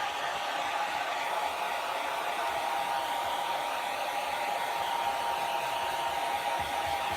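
Handheld hair dryer running steadily, a constant blowing whoosh with a droning whine of its motor and fan.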